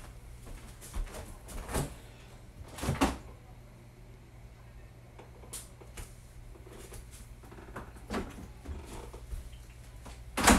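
Scattered knocks and clunks of kitchen handling, the loudest about three seconds in, over a low steady hum.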